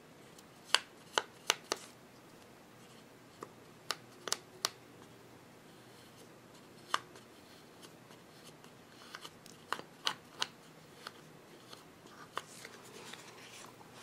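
Quiet, irregular sharp clicks with faint rubbing between them, from a fingertip spreading thermal paste across a CPU's metal heat spreader.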